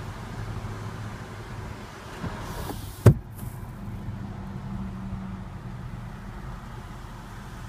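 Power sunroof of a 2014 Mercedes-Benz CLS 550 closing: a low motor whir as the glass panel runs shut, ending in a sharp thump about three seconds in as it seats, followed by a shorter motor hum.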